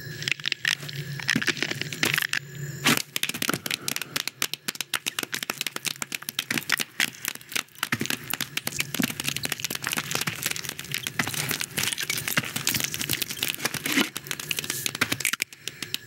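Dense, irregular crackling and clicking that keeps up throughout, from an animated film's sound-effects track, with no dialogue or music.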